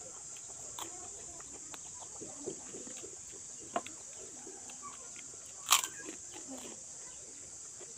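Chickens clucking softly over a steady high-pitched hiss, with small clicks and one loud sharp crackle a little before six seconds in.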